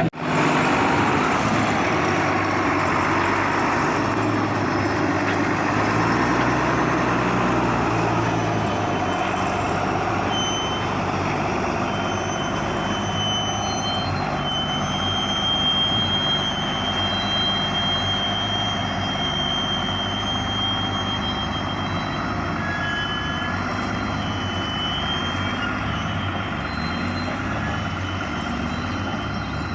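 Large tractor engine running steadily under load, with a thin high whine coming and going from about a third of the way in.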